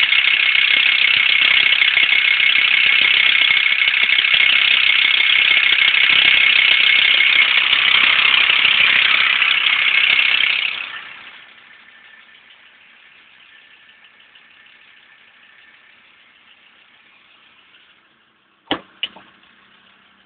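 Volkswagen LT35 van engine running lumpy with a loud, steady rattle. About eleven seconds in the sound drops sharply to a faint hum, and two sharp clicks come near the end.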